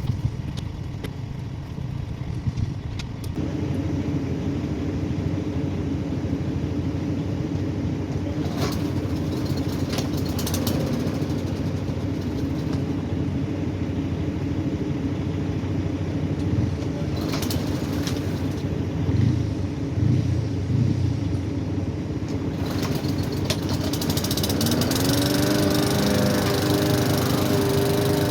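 Small gasoline push-mower engine running steadily, with a few brief knocks. Near the end its speed rises and holds higher.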